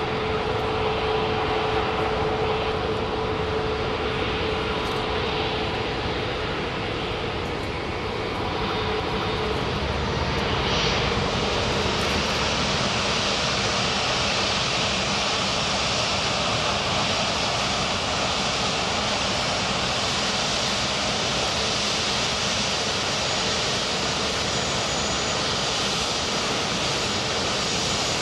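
Airbus A380's four turbofan jet engines running as the airliner rolls on the runway: a steady jet rush with a faint whine that fades out about nine seconds in, while the higher hiss grows stronger from about eleven seconds.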